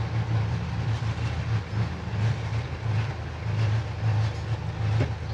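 Leopard 45 catamaran's inboard diesel engine running in forward gear at low speed, a low throb that pulses in a regular rhythm.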